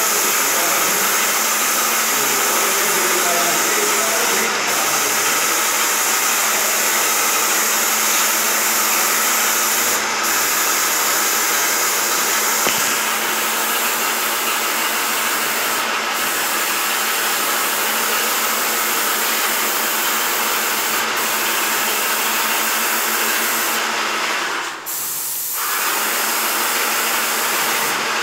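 Airless paint sprayer spraying a ceiling: a steady loud hiss of atomised paint over a steady low hum. The spray cuts out for a moment near the end, then starts again.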